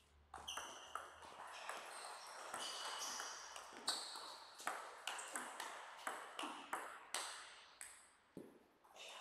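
A table tennis rally: the ball ticks sharply off the bats and the table in a quick, uneven run of about two hits a second, stopping shortly before the end.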